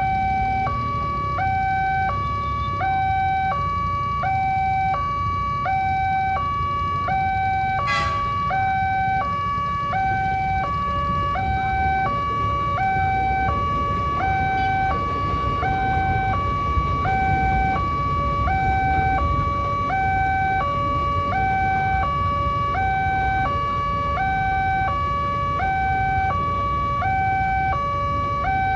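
Railway level-crossing barrier's electronic two-tone warning siren, switching evenly between a higher and a lower tone about every three quarters of a second, over a steady low rumble. A single sharp click about eight seconds in.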